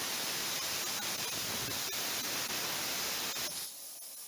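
Plasma cutter hissing steadily as its arc blows out a factory resistance spot weld in car body sheet metal, dropping to a fainter hiss near the end.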